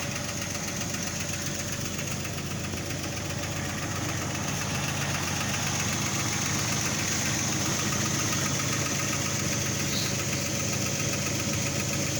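2003 Jeep Grand Cherokee WJ's 4.0-litre straight-six idling shortly after a cold start, with a fast, light, even ticking over the engine note. It is a cold-start tick that the owner says fades as the engine warms, and he cannot tell whether it is a valve-train tick or piston slap.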